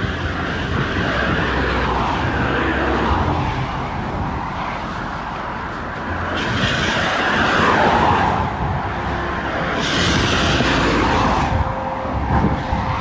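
Wind rumbling on the microphone while cycling along a road, with cars swishing past on the wet road: one about six and a half seconds in, the loudest, and another about ten seconds in.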